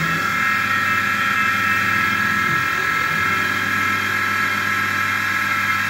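Small benchtop CNC mill with its spindle at 2,500 rpm, a 1/4-inch two-flute carbide end mill cutting acetal plastic. It makes a steady whine with several high tones over a low hum.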